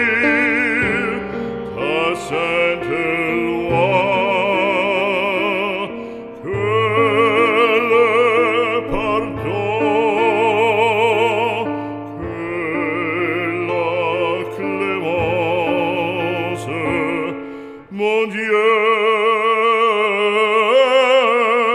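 Operatic singing with orchestral accompaniment, the voice holding long notes with a wide vibrato.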